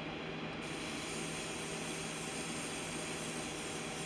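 Airbrush spraying paint in a steady hiss that starts about half a second in, with a steady low hum underneath.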